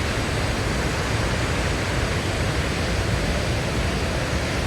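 Kakabeka Falls, a large waterfall, giving a steady, even rush of falling water.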